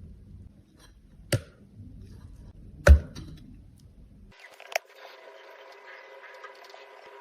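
Two sharp knocks about a second and a half apart, the second louder and deeper, over faint room noise; a little past halfway the background changes abruptly from a low rumble to a thin hiss, and a small tick follows.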